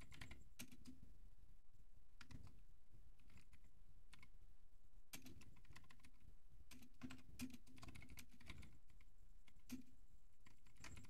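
Typing on a computer keyboard: faint, irregular keystrokes in short runs with brief pauses between them.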